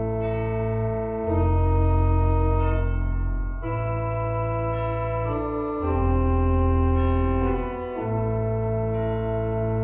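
Organ music: slow, held chords that change every one to two seconds over a deep bass.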